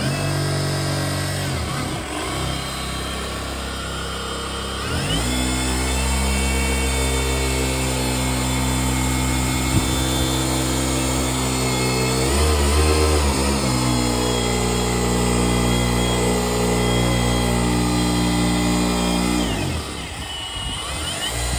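Milwaukee cordless polisher spinning a foam pad on a plastic headlight lens, its motor whine steady but shifting in pitch several times as the speed and pressure change. It drops away near the start, rises again about five seconds in, dips briefly around twelve to thirteen seconds, and winds down and back up near the end.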